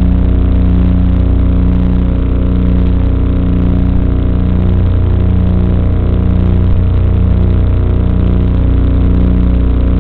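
Electric motor and propeller of an FPV model aircraft in flight, picked up by the onboard camera's microphone as a loud, steady droning hum that swells and fades slightly.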